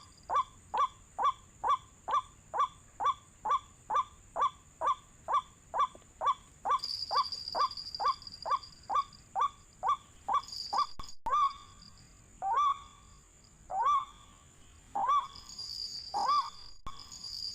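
White-breasted waterhen call: a long run of short, repeated 'ruak' notes at about two a second, slowing to more widely spaced notes after about ten seconds. A steady high insect buzz joins in about seven seconds in.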